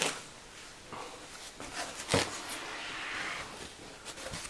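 Packaging being handled as a water-cooling reservoir is taken out of its box: soft rustling with a couple of light knocks, one at the start and one about two seconds in.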